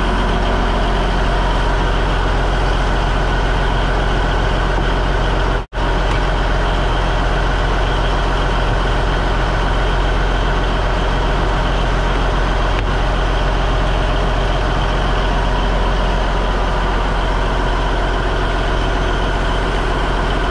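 A fishing boat's inboard diesel engine running steadily with a low, even drone. The sound cuts out for an instant about six seconds in.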